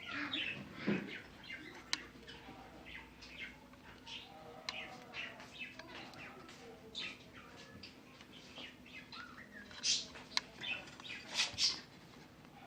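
Scattered short, high chirps and clicks, louder about ten and eleven and a half seconds in, over a faint steady hum.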